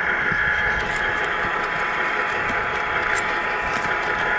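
Tamiya 1/14-scale RC semi truck's electric motor and gearbox whining steadily as it drives.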